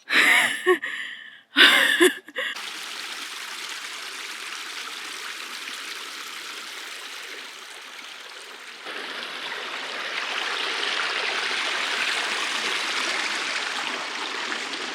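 Stream water running, a steady rushing that gets louder about nine seconds in. Two short loud sounds come in the first two seconds.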